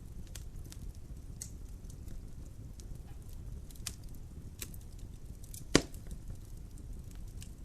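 Fire burning in a fireplace: a low steady rumble of flames with scattered small crackles and one loud pop about six seconds in.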